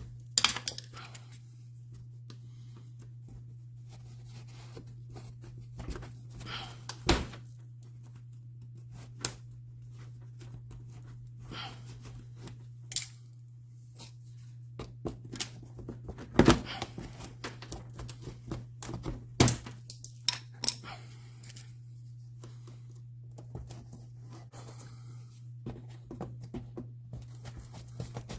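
Scattered clicks, knocks and scrapes of hands and tools working plastic push-pin retaining clips loose from a Dodge Caliber's bumper cover, with a few sharper knocks spread through. A steady low hum runs underneath.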